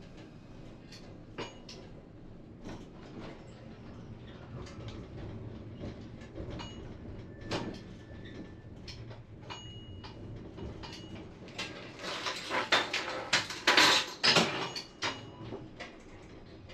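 Tram running slowly, with a low steady hum and scattered clicks. About twelve seconds in comes a burst of loud, rapid clattering and knocks lasting about three seconds.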